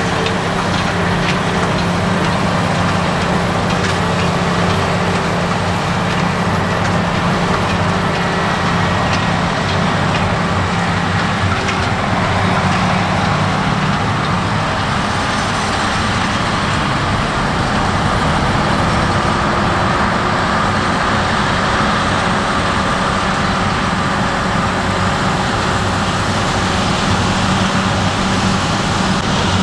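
Diesel-powered grain-harvest machinery running steadily, with a continuous engine drone; the engine note shifts about halfway through.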